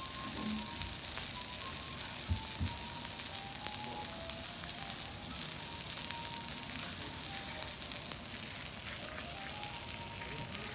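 Wagyu beef searing on a hot steel teppanyaki griddle, sizzling steadily with fine crackles of fat and juices.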